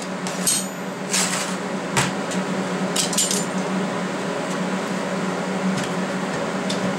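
Locking-plier welding clamps being released and lifted off a steel welding table, giving a handful of sharp metal clicks and clinks in the first three seconds or so, over a steady low hum.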